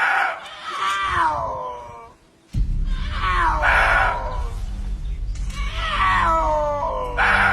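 Repeated animal cries, each a loud pitched call falling in pitch, over a steady low musical backing that comes in about two and a half seconds in.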